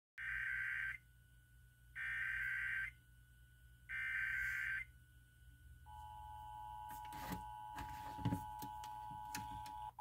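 Emergency Alert System header received on a Midland weather radio, at the opening of a Required Monthly Test: three bursts of shrill SAME digital data, each about a second long with a second between them, then about six seconds in the two-tone attention signal (853 and 960 Hz) starts and holds steady. A few faint knocks sound during the tone.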